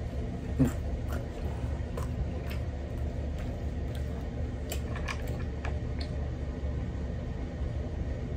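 Close-miked chewing with wet mouth clicks and lip smacks, scattered irregularly, over a steady low hum.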